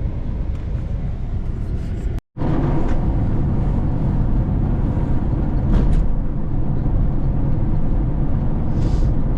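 Steady engine and road rumble heard from inside a moving car. The sound cuts out completely for a moment about two seconds in, then the rumble continues a little louder, with a few faint clicks.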